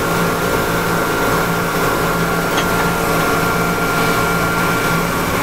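Steady hum of dry-cleaning pressing machinery, a motor drone with a thin, constant high whine over it.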